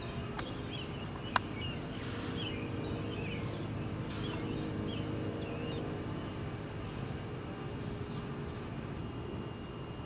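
Birds chirping in short, repeated, rising and falling notes, with a few higher calls, over steady background noise. A single sharp click comes about a second and a half in.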